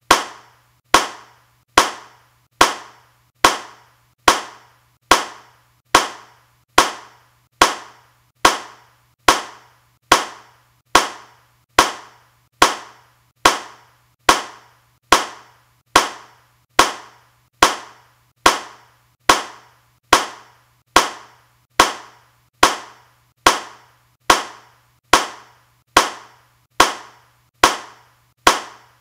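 A single hand clap repeated at an even pace, a little over once a second, each clap sharp and alike with a short decay. A faint low hum runs beneath.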